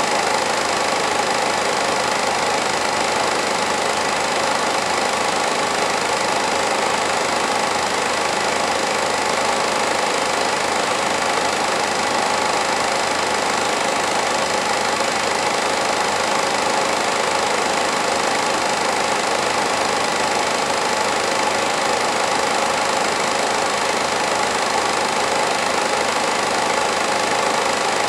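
Home-movie film projector running: a steady mechanical whir and clatter from its motor and film transport.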